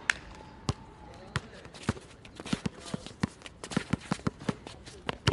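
Basketball dribbled on an outdoor asphalt court: single bounces about every half second at first, then quicker bounces, three or four a second, from about halfway through.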